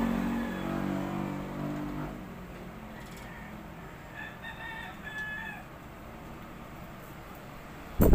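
A rooster crowing faintly about four seconds in, after a low hum fades out over the first two seconds; a sharp clatter comes right at the end.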